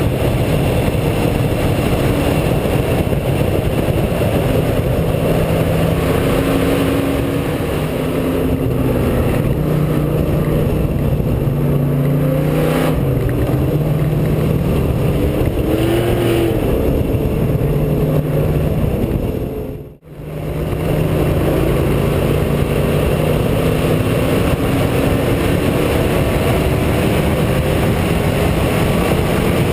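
Race car engine heard from an onboard camera at speed, its pitch climbing and dropping repeatedly through gear changes and lifts, over road and wind noise. The sound drops out abruptly for a moment about two-thirds of the way through.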